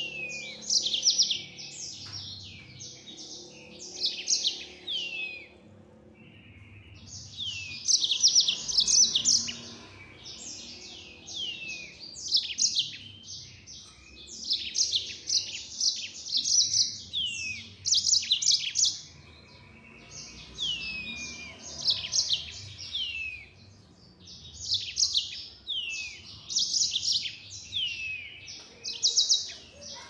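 Yellow-fronted canary (Mozambique canary) singing in long, fast bouts of high rapid trills and down-slurred notes, with short pauses between bouts.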